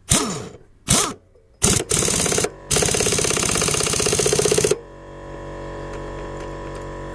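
Hilka half-inch air impact wrench on a lawnmower blade bolt, set to forward to tighten it: three short blips of the air motor spinning, then about two seconds of continuous rapid hammering that cuts off sharply. A steady motor hum from the air compressor carries on after it.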